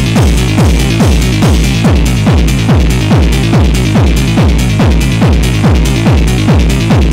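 Techno track: a steady four-on-the-floor kick drum about twice a second, each hit trailing a falling pitch sweep, under a steady hissing top layer.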